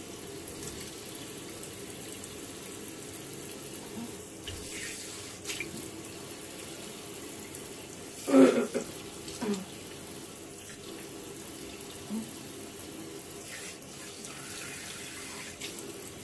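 Tap water running steadily into a sink while the mask is rinsed off, with a brief voice sound about eight seconds in.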